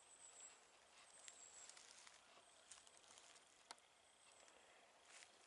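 Near silence in the woods: a faint hiss with a few light clicks and rustles, and one sharper click about three and a half seconds in. Two faint, thin high tones come in the first two seconds.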